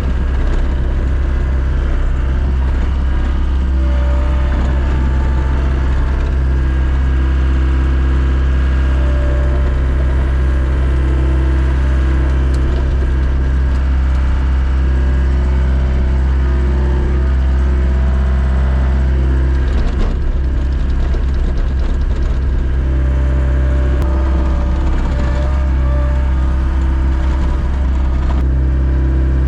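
A vehicle engine running at a steady speed with a low drone, with a brief knock about twenty seconds in.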